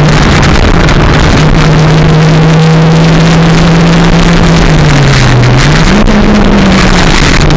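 Stock Toyota 4E-FTE turbocharged 1.3-litre four-cylinder engine running hard inside the car, its note under a heavy, constant rush of noise. The engine pitch holds steady, dips about five seconds in, rises briefly about a second later, then falls again.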